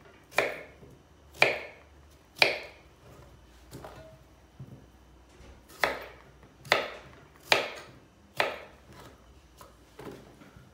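Chef's knife cutting through raw potato and knocking onto a wooden cutting board: three sharp knocks about a second apart, a pause of a few seconds, then four more, with lighter taps near the end.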